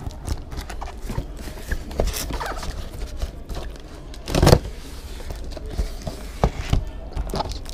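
A plastic-wrapped cardboard parcel being handled and tilted on a workbench: rustling and small knocks of the box and its film wrapping, with one louder bump about four and a half seconds in.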